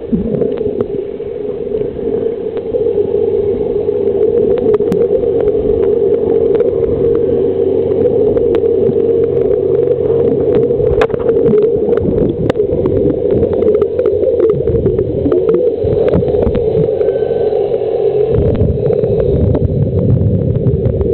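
Steady, muffled underwater drone picked up by a camera in a waterproof housing during a snorkel, with scattered sharp clicks throughout.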